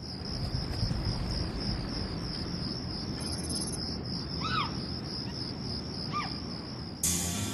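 Crickets chirping steadily over a low background rumble, with two short chirps in the middle. Music comes in suddenly near the end.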